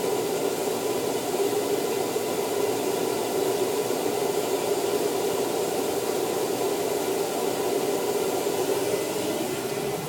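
Vanagon Westfalia's rear heater blower fan on its highest setting, a steady rush of air that is way louder than the Propex propane heater's fan running with it, the engine idling underneath.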